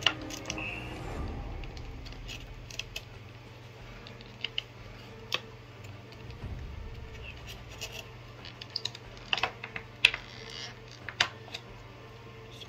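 Small hard plastic clicks, taps and scratches at irregular intervals, from handling an action figure and snapping its swappable parts in and out, bunched together near the end. A low steady hum runs underneath.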